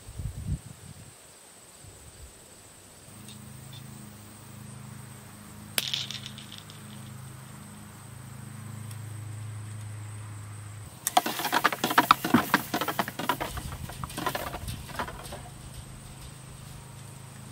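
A single sharp click, then about four seconds of rapid clattering and rattling.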